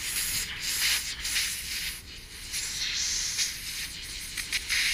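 Pressurized air hissing out of a leak at a coupler-and-clamp joint on turbo charge piping, rising and falling. The owner is pretty sure the pipe was pinched a little in shipping.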